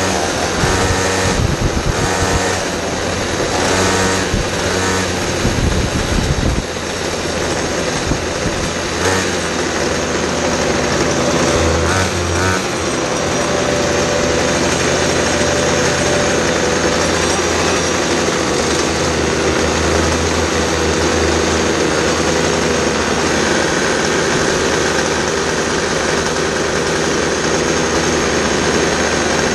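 A kid kart's small engine heard onboard, running at low revs as the kart rolls slowly in line, with the steady hum of other karts' engines close by. The first few seconds are busier and change more; after that the running settles to a steady drone.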